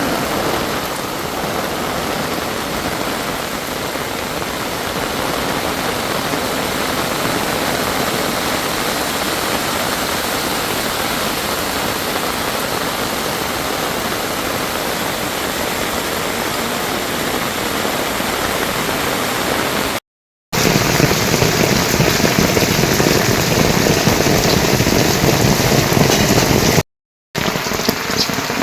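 Heavy rain falling steadily as a dense hiss, cut off twice by brief dead-silent gaps; between the gaps, from about twenty seconds in, the rain is louder and fuller.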